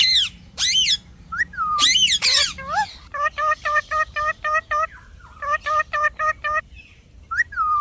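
Parrot calling: a few loud screeches that swoop up and down in pitch over the first three seconds, then a fast run of short, even chirps, about four a second, for some three and a half seconds, and one more call near the end.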